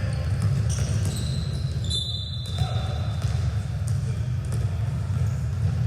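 Ball bouncing on a gym floor with short sneaker squeaks, over a steady low rumble of the hall.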